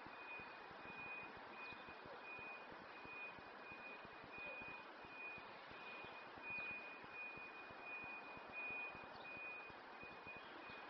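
A faint, steady series of high electronic beeps at one pitch, about two a second, over a low outdoor hiss.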